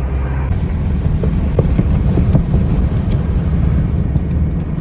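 Cab noise of a GAZelle NEXT truck driving with its Cummins 2.8 four-cylinder turbodiesel running, under a heavy rumble of road and gusting wind noise. A few light knocks and creaks come through in the middle.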